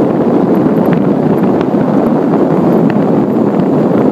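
Steady wind noise buffeting the microphone of a handcycle rider on the move.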